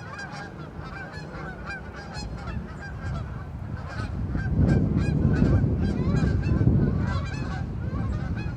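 A flock of Canada geese honking, many short calls overlapping without a break. A low rumble swells through the middle and is loudest there.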